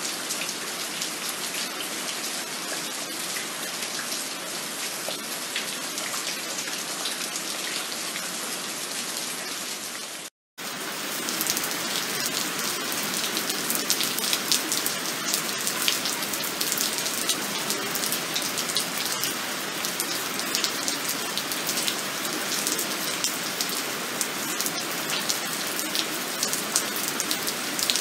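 Heavy monsoon rain falling steadily, a dense hiss dotted with many individual drops striking close by. About ten seconds in the sound cuts out for a moment, and after the break the rain is louder with sharper drop hits.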